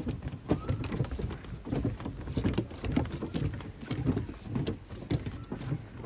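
Footsteps of several people walking on a wooden boardwalk: quick, irregular knocks of shoes on the planks, several a second.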